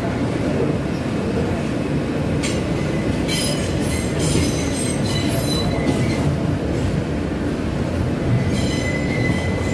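New York City subway J train running on elevated track, heard from inside the car: a steady rumble of wheels on rail. High-pitched metal squealing joins it about two and a half seconds in for around three seconds, and again near the end.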